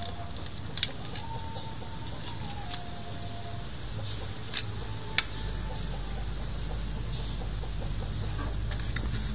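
A few sharp metallic clicks as the Bajaj CT100's steel clutch plates and friction discs are pressed together in the clutch basket by hand, over a faint drawn-out wavering tone in the background; a low hum builds from about five seconds in.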